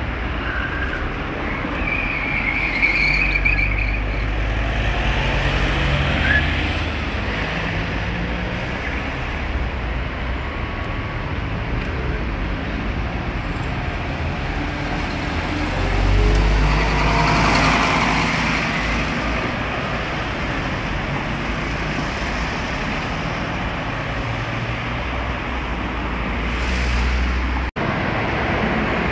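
Scania OmniCity city bus running close by amid city traffic, getting louder for a couple of seconds about halfway through. A brief high squeal comes near the start.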